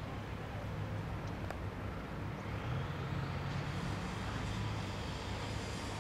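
Supercharged V10 of a G-Power Hurricane RS BMW M5 running at low speed as the car drives away, a steady low engine rumble.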